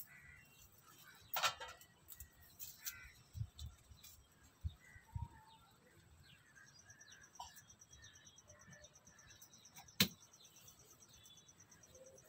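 Quiet garden ambience with scattered faint rustles and two sharp clicks, one early and one near the end. From about halfway a high, rapid, even insect trill sets in and keeps going.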